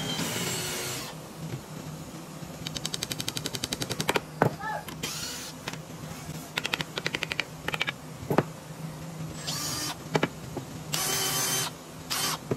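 Makita cordless drill used in short bursts on pine framing, with two runs of rapid, even clicking, about ten a second, and several sharp wooden knocks and handling sounds in between.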